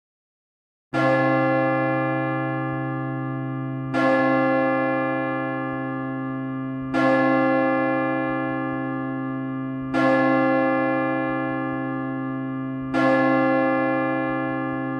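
A deep bell tolling five times, one stroke every three seconds on the same note, each stroke ringing on and fading slowly. It begins about a second in.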